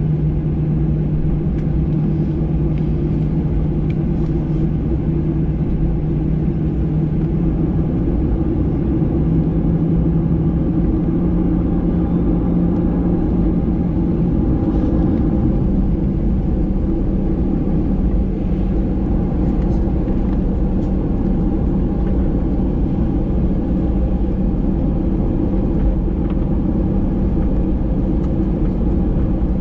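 Boeing 737-800 cabin noise: the CFM56-7B jet engines running, a steady low rumble with a droning hum whose pitch shifts up slightly about halfway through.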